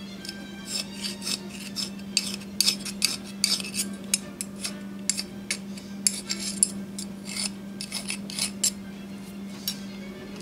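Hand file rasping on a cast metal truck side frame in quick, irregular strokes, cleaning off the casting flash. A steady low hum runs underneath.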